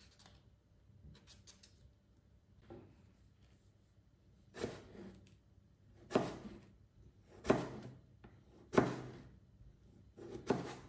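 Knife chopping potatoes on a cutting board: five sharp knocks of the blade hitting the board, spaced about a second and a half apart, starting about four and a half seconds in, with fainter taps before them.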